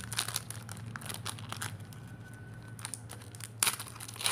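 Foil wrapper of a Pokémon trading card booster pack crinkling and tearing as it is opened by hand: a run of irregular sharp crackles, with two louder rips in the last second.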